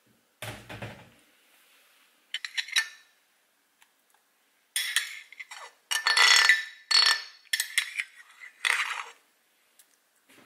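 A metal spoon scrapes and clinks against a ceramic bowl in a run of strokes over the second half, scooping out grated daikon radish. There is a soft thump about half a second in and a few light clinks shortly after.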